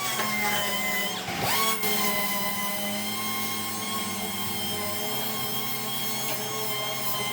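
Power sander running with a steady whine, briefly slowing and spinning back up about one and a half seconds in, while scuffing a truck fender for primer.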